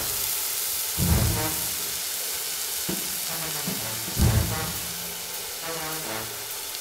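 Sizzle of food frying in a hot wok, a steady hiss, over theme music with deep bass hits about one second in and again about four seconds in.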